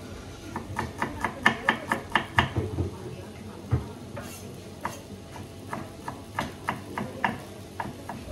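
Spatula knocking and scraping against a pan while stir-frying pad thai: a quick run of sharp clacks, a short pause, then a steadier run at about three a second.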